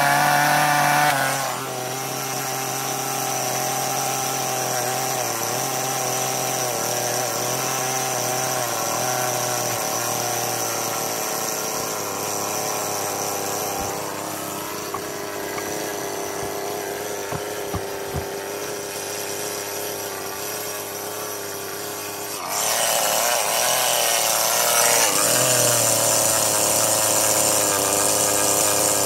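Chainsaw carving a log: running at high revs for the first second or so, then dropping to a lower, steadier run for about twenty seconds with a few light clicks, then revving up again about 22 seconds in and staying high.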